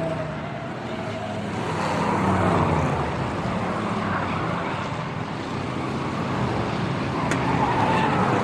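Race cars passing by at speed, the engine note dropping in pitch as a car goes past about two to three seconds in; the sound swells again near the end.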